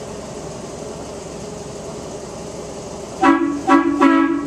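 Miniature train's horn giving three short toots in quick succession about three seconds in, over a steady background hum.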